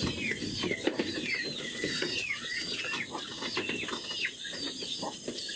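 Birds chirping in short, rapid, repeated calls over a constant rustling crackle.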